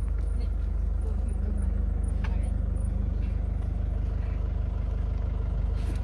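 Safari vehicle's engine running with a steady low hum, heard from inside the cabin, with a faint knock about two seconds in.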